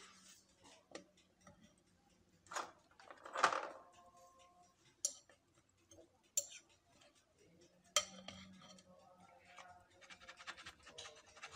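A plastic slotted skimmer and a metal fork scraping and clinking against a ceramic bowl as soft cookies are scooped out of syrup, with a few sharp clicks and a louder scrape about three and a half seconds in.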